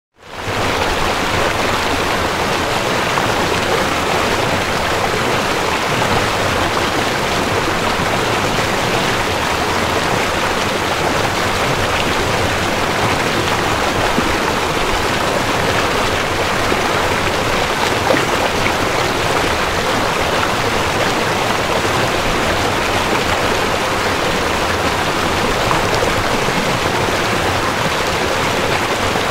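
Shallow river running steadily over stones: a constant rush of water that fades in at the very start.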